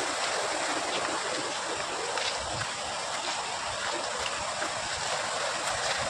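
Steady rushing of running water, an even hiss, with a few faint footfalls and grass rustling.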